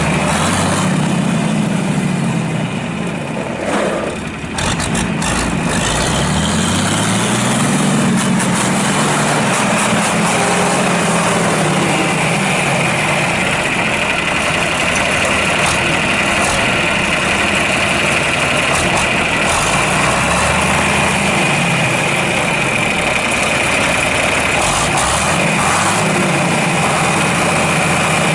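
John Deere 4020's six-cylinder diesel engine running, its pitch rising and falling several times as it is pulled up and eased off. A steady high whine joins in about twelve seconds in.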